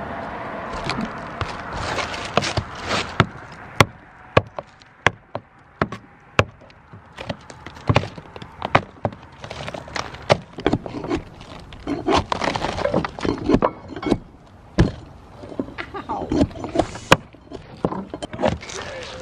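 Old asphalt roof shingles being pried and torn off wooden roof boards with a hand tool: irregular sharp knocks and strikes mixed with scraping and crunching of brittle shingle pieces, sparser for a few seconds then busier again.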